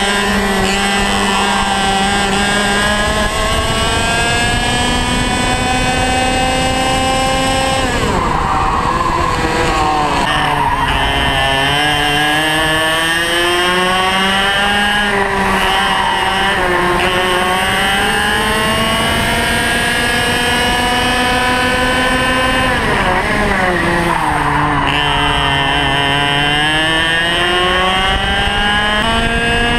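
Two-stroke TAG racing kart engine heard from on board at racing speed. The engine note climbs steadily down the straights, drops sharply under braking about 8 seconds in and again near 23 seconds, then picks up and climbs again out of the corners.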